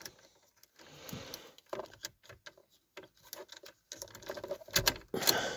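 Scattered light clicks and rattles of handling, with a louder knock and rattle near the end.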